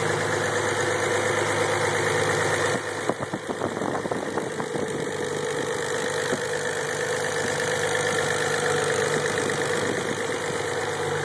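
Car engine idling steadily after start-up, with no abnormal noise. About three seconds in, the sound shifts briefly with a few light knocks, then settles back to an even idle.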